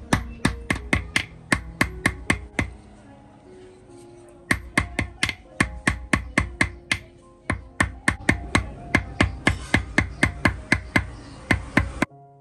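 Jeweller's hammer striking a small gold ingot on a steel bench block, forging it out into a strip: quick sharp metal-on-metal blows at about three a second, in runs with two short pauses. Soft music plays underneath, and near the end the hammering cuts off and piano music is left.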